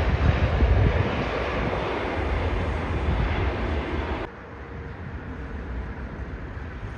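Jet airliner on its landing approach, engine noise with a deep rumble slowly fading as it passes. The sound cuts off suddenly about four seconds in, leaving a quieter steady background.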